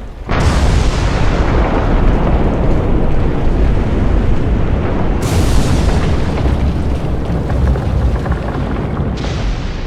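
Sangeang Api volcano erupting: a loud, continuous rumble heavy in the low end. It starts suddenly and shifts abruptly about five and nine seconds in.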